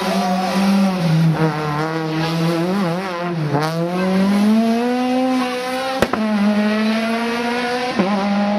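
Citroën C2 rally car's engine working hard through a roundabout: the engine note falls about three and a half seconds in, then climbs steadily as the car accelerates away. Two sharp cracks follow, about two seconds apart, near the end.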